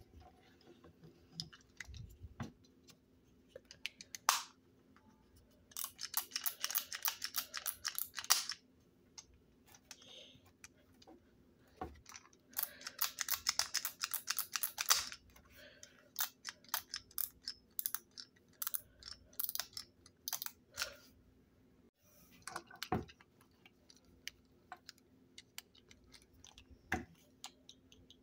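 Hard plastic Burger King Shrek candy caddy toys being handled on a wooden table: scattered clicks, snaps and knocks of plastic parts. Twice there is a run of rapid clicking and rattling lasting two to three seconds, as the Lord Farquaad throne toy's parts are worked.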